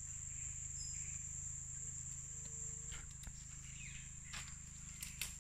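Insects droning steadily in one continuous high-pitched tone, over a low steady hum. A few light clicks and knocks come in the second half, from movement among the sticks and branches on the bank.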